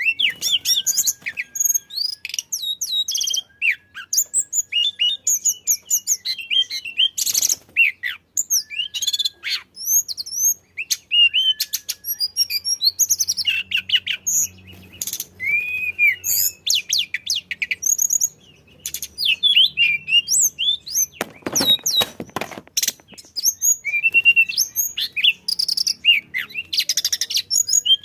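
Tledekan songbird singing nonstop: a fast, varied stream of high chirps, slurred whistles and short trills, with hardly a pause. A couple of brief noisy bursts break in, one about a third of the way in and a few near three quarters of the way.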